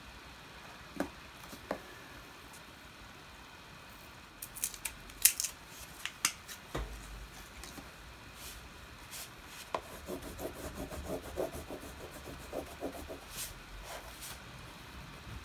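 Wax crayons clicking against each other as they are picked out of a loose pile, with a burst of sharp clatters about five seconds in. Then a crayon scribbling quickly back and forth on thick paper for a few seconds.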